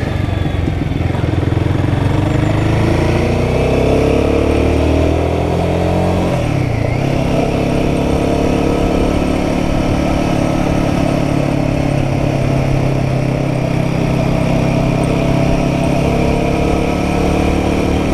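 Royal Enfield Guerrilla 450's single-cylinder engine under way. The revs rise over the first six seconds, dip and pick up again about six seconds in, then hold steady.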